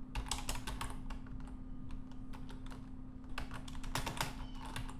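Typing on a computer keyboard: a quick run of keystrokes at the start, a few scattered keystrokes, then another quick run near the end.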